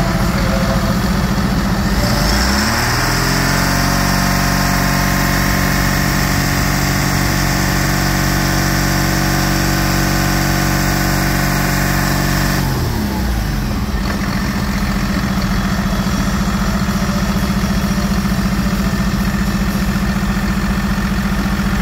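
2017 Hino J08E-WU turbocharged 7.6 L diesel engine idling. About two seconds in it revs up to a steady higher speed and holds there for about ten seconds, then drops back to idle.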